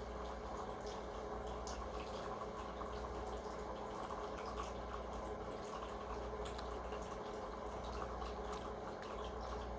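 Quiet room tone with a steady low hum and a few faint scattered clicks.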